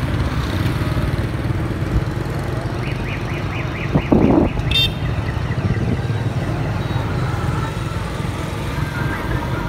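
Steady low rumble of a moving motorbike's engine and the wind of the ride, with other motorbikes passing. About four seconds in there is a brief louder sound.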